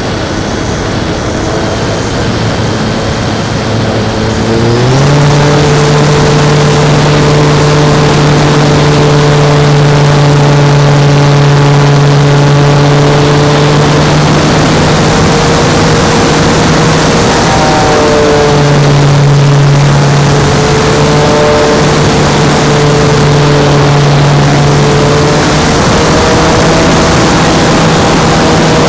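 Electric motor and propeller of an E-flite P-51 Mustang RC model heard from on board in flight: a steady droning hum that steps up in pitch about five seconds in, then dips and rises again a few times, over constant rushing wind noise.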